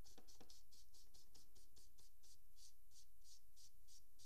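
Charcoal stick scratching across drawing paper in short, quick, repeated strokes, about four or five a second, hatching in individual fibre lines.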